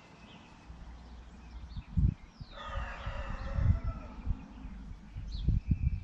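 Garden birds calling: a short falling whistle and a brief call with several tones at once, about two and a half seconds in, over outdoor background noise. Several dull low thumps, the loudest sounds, come around two seconds in, three and a half seconds in and near the end.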